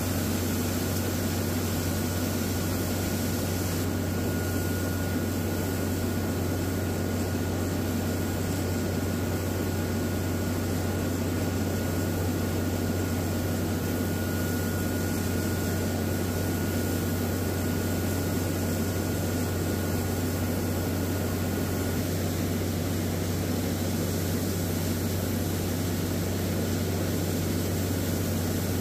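Water-well drilling rig's Cat 3406 diesel engine and air compressor running steadily at high speed, blowing air down the hole to clear cuttings out of the well. A faint high whine over the steady drone stops about three-quarters of the way through.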